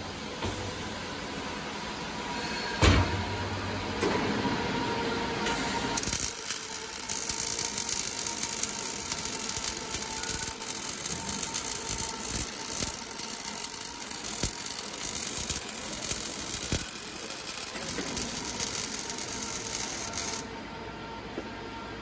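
Automatic welding machine's arc welding around the top of a steel water heater tank: a loud, dense hiss with fine crackle starts about six seconds in and cuts off near the end. Before the arc strikes there are machine knocks and a sharp click.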